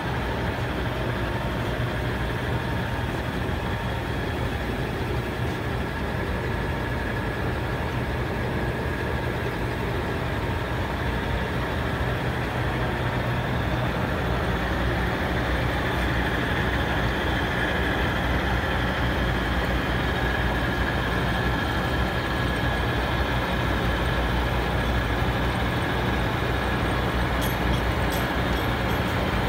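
53-inch by 20-foot Poreba engine lathe running under power: a steady mechanical hum from its drive motor and headstock gearing, getting a little louder about halfway through.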